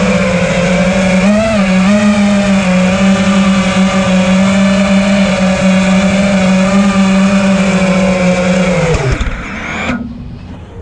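FPV freestyle quadcopter's brushless motors and propellers running at a steady whine with a brief wobble in pitch, then spinning down and stopping about nine seconds in.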